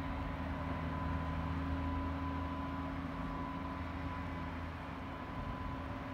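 Steady low mechanical hum made of several held pitches, with a faint thin high whine and a light hiss above it.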